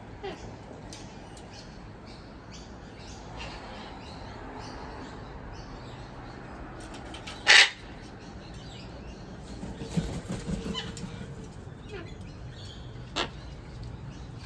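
Wild cockatoos and lorikeets calling while being fed, with scattered short calls over a steady background. One very loud short call comes about halfway through, and a shorter loud one comes near the end.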